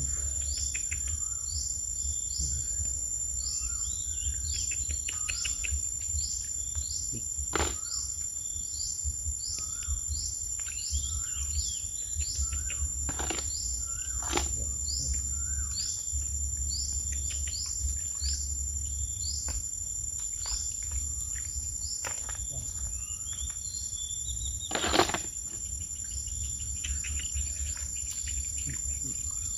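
Insects, crickets among them, trilling in a steady high unbroken tone, over a run of short repeated chirps about twice a second. A low rumble runs underneath, and a few sharp knocks come through, the loudest about 25 seconds in.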